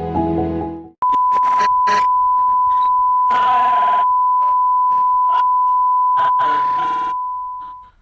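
Music cuts off about a second in, followed by a steady, loud electronic beep tone at one pitch, held for about seven seconds before it fades out, with faint short sounds beneath it.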